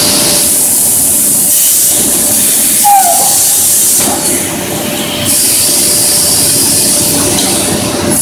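Automatic plate grinding machine running, its motors and belt-driven heads spinning metal discs: a steady loud hiss and hum with a constant tone through it. A short squeal about three seconds in, and the noise eases briefly around four to five seconds.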